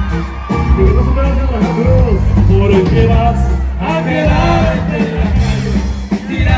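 Live norteño corrido band playing: a button accordion runs a quick melody over a loud electric bass and guitar.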